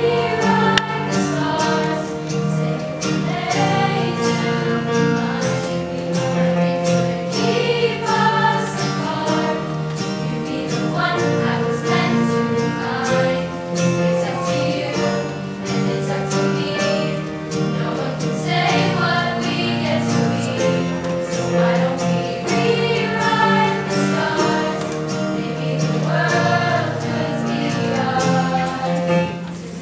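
Children's chorus singing a pop song in unison and harmony, accompanied by acoustic guitar.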